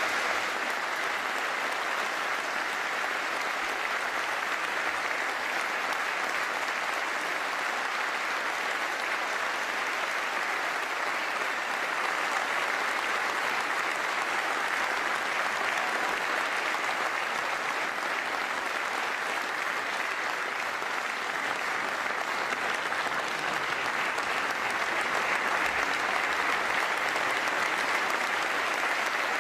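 Audience applauding steadily at length, swelling a little near the end.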